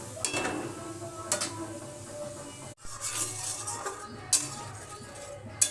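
Metal spoon scraping and clinking against a pan while stirring the onion-paste masala, with a few sharp clinks, over background music.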